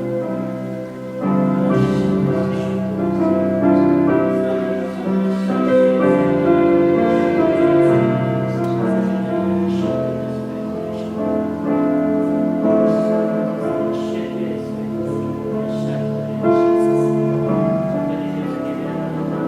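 Slow instrumental music on a keyboard instrument, with held chords that change every second or two.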